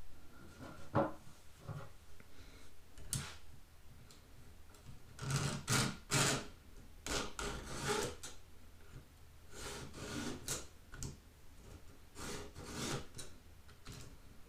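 Codirom 2-in-1 chainsaw sharpener's files rasping along a saw chain's cutters in short push strokes, in several quick groups from about five seconds in. A few light clicks come earlier as the chain is handled and moved along the bar.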